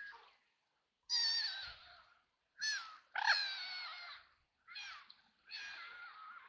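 Ducks quacking: a run of about five harsh, raspy calls, a few drawn out, with short gaps between them.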